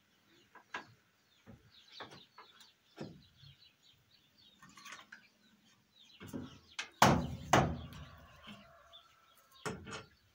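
Scattered knocks and rustles of work in a hay barn, with two louder thumps about seven seconds in, and birds chirping.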